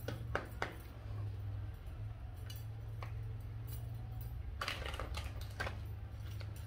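Tarot deck being shuffled by hand. A few light card clicks and taps, then a crackly riffle of the two halves about two-thirds of the way through, over a steady low hum.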